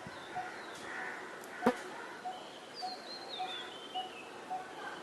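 Birds calling: a short, low note repeated steadily about twice a second, with a run of high chirps falling in pitch around the middle. A single sharp knock sounds a little under two seconds in.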